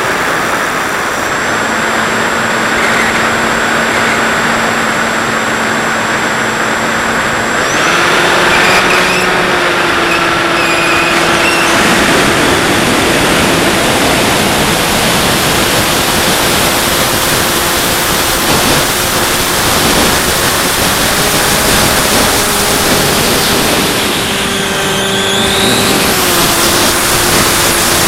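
Bixler 2 RC plane in flight, heard through its onboard Mobius camera: a steady rush of wind over the camera with the electric motor and propeller humming underneath. The motor's pitch steps up about eight seconds in, then rises and drops back briefly near the end.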